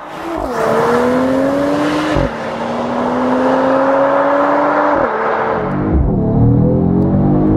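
Mercedes-AMG GT 53's turbocharged 3.0-litre inline-six, fitted with the AMG Performance exhaust, pulling hard under acceleration. The engine note climbs steadily, drops at an upshift about two seconds in, climbs again, and drops at another upshift about five seconds in.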